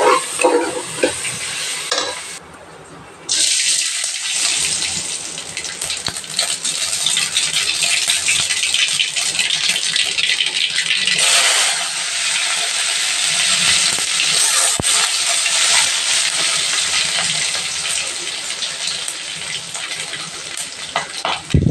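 Hot oil sizzling and crackling with spices in a large aluminium kadai, as a steady crackly hiss that swells about eleven seconds in. At the very start, a brief stir of onions frying in an aluminium pressure cooker.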